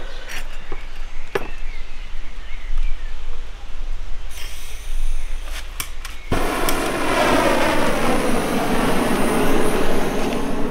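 Handheld butane blowtorch on a gas canister: several sharp igniter clicks, then about six seconds in the flame catches and burns with a loud, steady rushing noise.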